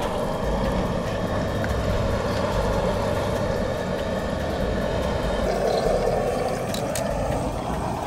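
Propane burner of an outdoor fish fryer burning steadily with an even roar. A couple of light clicks near the end.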